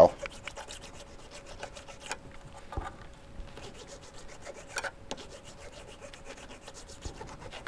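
Hand file rasping in many short strokes along the cut edge of a small aluminum bracket piece, taking off the burrs.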